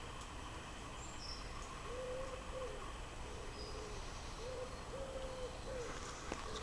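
A bird calling in woodland: a series of low hooting coos, each held about half a second, repeated in a loose phrase from about two seconds in. Faint high songbird chirps sound above it.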